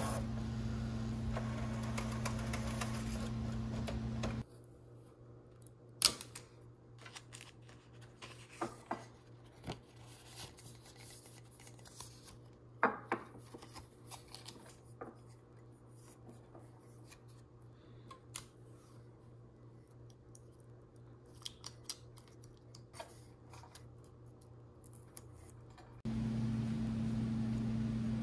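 Steady hum of a Sawgrass sublimation printer running for the first four seconds, then cuts off. It is followed by quiet handling of a ceramic mug and paper transfer: scattered small clicks, taps and snips. A similar steady hum returns near the end.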